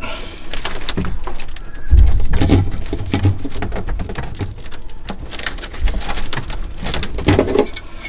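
Plastic wire-harness connectors on a refrigerator evaporator fan motor being handled and pulled apart, giving a run of small clicks and knocks with rustling of the wiring.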